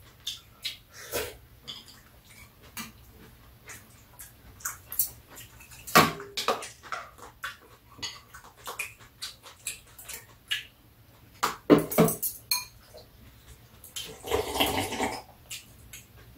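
Metal chopsticks and spoons clicking and scraping against bowls during a meal, in scattered irregular clinks, with a second-long slurp of soup from a raised bowl near the end.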